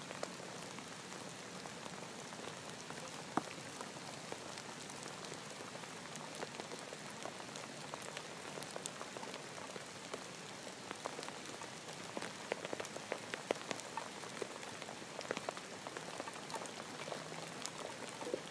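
Rain falling steadily: an even hiss dotted with sharp drop ticks. The ticks come more often in the last third, with one louder drop about three seconds in.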